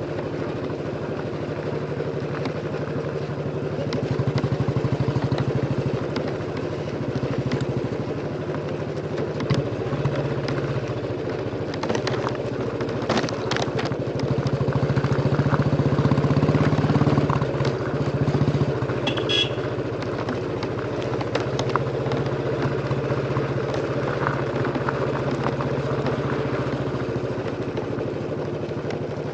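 Royal Enfield Bullet 350's single-cylinder engine thumping steadily through its exhaust as the motorcycle is ridden along. It gets louder for a couple of seconds twice, about four seconds in and again past the middle, as the bike pulls harder.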